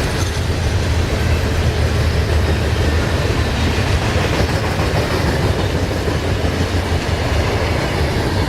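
Freight train rolling past on the rails: a steady rumble of wheels and cars going by.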